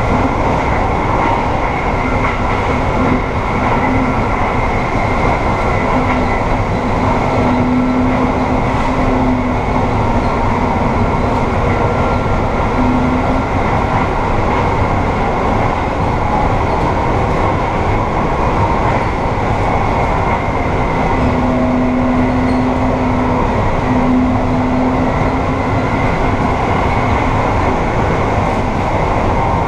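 Amtrak passenger train running at speed, heard from inside the rear vestibule: a steady, loud rumble and hiss of wheels on rail, with a low hum that swells a few times.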